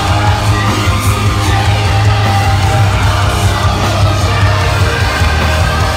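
Live metalcore band playing at full volume: heavy guitars and drums with vocals, dense and bass-heavy as picked up by a phone microphone inside the crowd.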